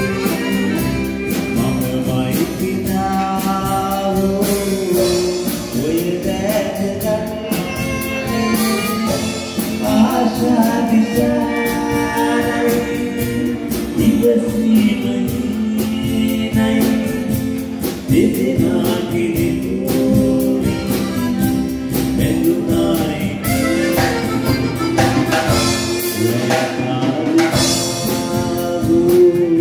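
Background music with singing over sustained instruments.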